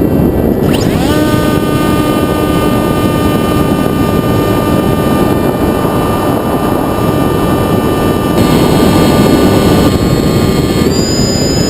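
Sky Surfer RC plane's electric motor and propeller over heavy wind rush on the airframe: the motor spools up about a second in to a steady whine, then steps up in pitch near the end.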